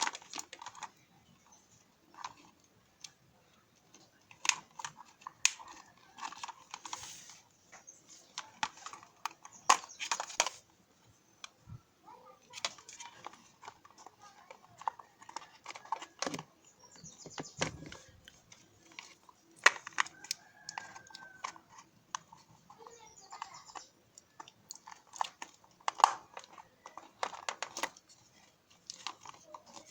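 Irregular clicks, taps and short scrapes of small hard parts being handled and worked on by hand, as in taking apart an egg beater.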